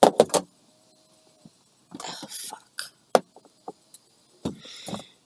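A series of sharp clicks and knocks of small hard objects being handled, loudest right at the start, with short hissy rushes of noise about two seconds in and again near the end.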